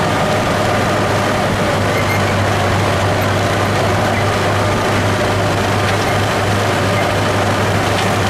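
Farm tractor engine running steadily while the tractor drives through the field, a constant low hum with no change in speed.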